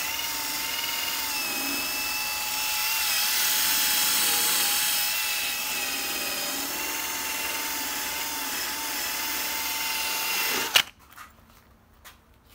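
Power drill spinning a foam polishing pad against a plastic headlight lens: a steady motor whine with a slightly wavering pitch over the hiss of the pad rubbing. It stops abruptly with a sharp click near the end.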